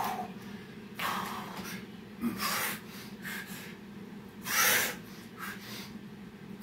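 A man breathing hard from the exertion of burpees: four loud, forceful exhales about one to two seconds apart, the strongest about two-thirds in.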